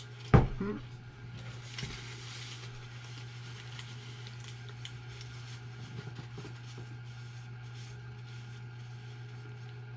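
A single knock just after the start as a plastic ketchup bottle is set down on a wooden table. Then come soft crinkling of foil and wrapper paper and quiet eating sounds over a steady low hum.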